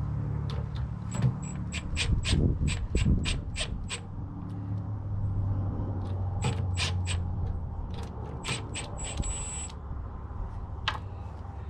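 Ratchet wrench clicking in runs of quick sharp clicks as a half-inch nylon-insert lock nut is drawn down onto a bolt.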